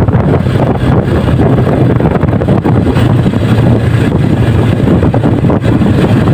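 Sport motorcycle's engine running steadily while riding, under heavy wind noise buffeting the microphone.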